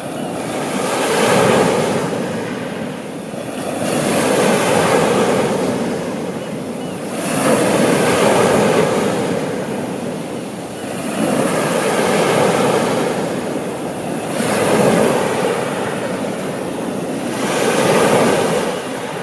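Sea waves washing onto the shore in a slow, even rhythm: six swells of surf, one every three to four seconds, each rising and falling away.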